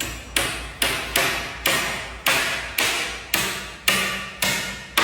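A hammer driving nails into wood: a steady run of about ten blows, roughly two a second.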